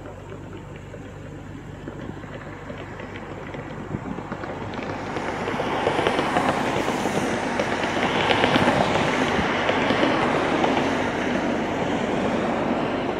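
Thunderstorm noise: a crackling rush that swells from about four seconds in, stays strongest through the middle, and eases slightly near the end.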